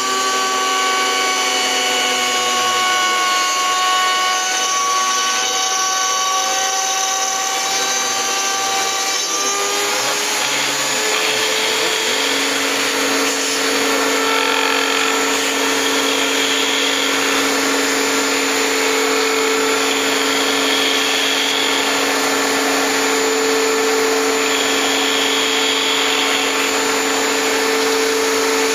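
Homemade CNC router milling a circular pocket in wood, its mini-grinder spindle running at high speed while stepper motors drive the axes. The machine's whine changes pitch about ten seconds in, then holds steady, with a brief higher-pitched patch every few seconds.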